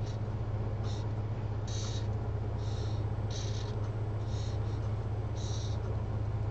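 Marker pen drawing lines on a paper diagram: about six short strokes, each a brief scratch of the tip, over a steady low hum.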